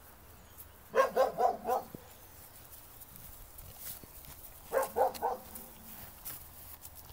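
A dog barking in two quick runs of about four barks each, the first about a second in and the second a few seconds later.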